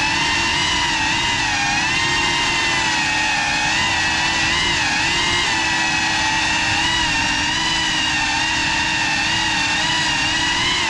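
FPV drone's motors and propellers whining steadily, the pitch wobbling up and down with small throttle changes.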